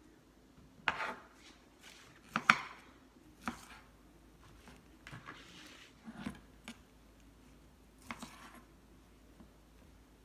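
Knife knocking on a cutting board as vegetables are cut: scattered single strokes with a little clatter, about seven spread unevenly over the stretch. The loudest comes about two and a half seconds in.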